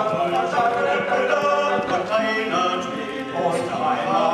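Male a cappella group of five voices singing a German song together in harmony, several parts holding notes at once.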